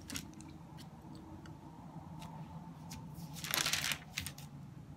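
Bible pages being leafed through: soft paper rustling and light flicks, with one louder page rustle about three and a half seconds in, over a faint steady hum.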